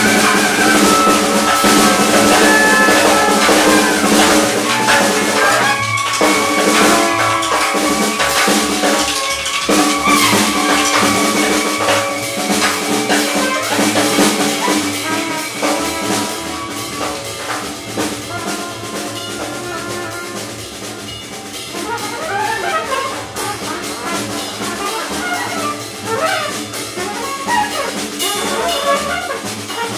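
Free-improvised jazz from saxophones, bass clarinet, trumpet, double bass and drums. It opens loud and dense with long held horn notes, thins out and grows quieter about halfway through, then picks up again with quick, wavering horn lines over the drums.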